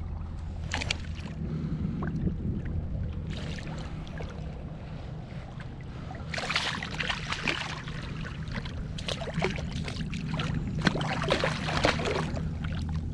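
A large speckled trout hooked at the surface, thrashing and splashing the water in bursts that come thicker from about halfway on, over a steady low rumble.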